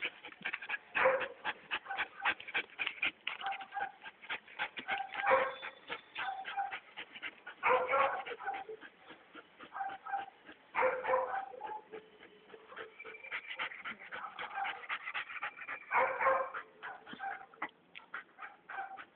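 Shepherd dog whining and yipping over and over, in short pitched calls, with louder clusters every few seconds and one long, thin, high whine past the middle.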